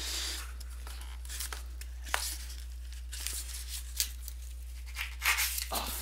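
Cardboard shipping box being worked open by hand: soft scrapes and a few sharp clicks of the flaps and tape, then a louder tearing rustle near the end as the lid comes free. A low steady hum runs underneath.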